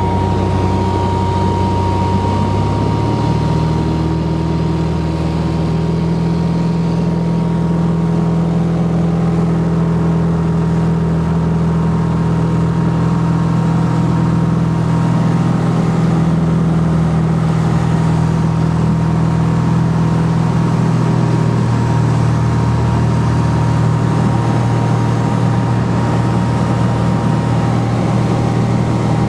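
Cabin drone of a Cessna 182 RG's six-cylinder engine and propeller in cruise flight, heard from inside the cabin. The pitch steps up about three seconds in as the engine speed rises, then holds steady.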